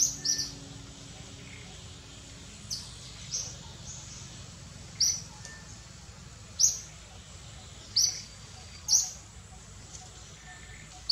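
A bird calling with short, sharp, high chirps, about ten of them at uneven gaps of a second or two, over a steady low background hum.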